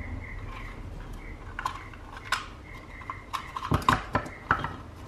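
Hard plastic clicks and knocks as a panel-mount power outlet is pushed into a PVC enclosure and the box is handled on a wooden bench, with a cluster of sharper knocks about four seconds in.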